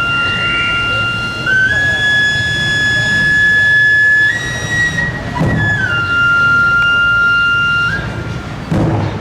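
Chirimía (Guatemalan double-reed shawm) playing a slow line of long held notes, stepping up twice and then back down, with two low thumps, one midway and one near the end.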